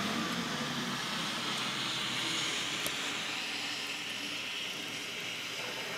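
Snowplow dump truck driving past and pulling away: its engine hum fades in the first second, leaving a steady hiss of tyres on the snowy road.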